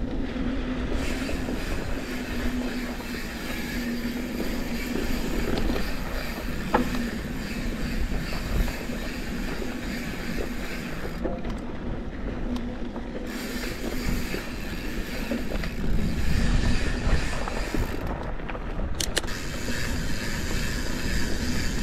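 Santa Cruz 5010 mountain bike rolling over dusty dirt singletrack: steady tyre-on-dirt noise with the bike's mechanical rattle and a few sharp clicks.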